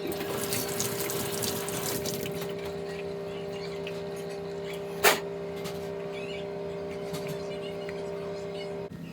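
Samsung washing machine humming steadily with water rushing through it, the flow loudest in the first couple of seconds. A sharp click comes about five seconds in, and the hum cuts off suddenly near the end.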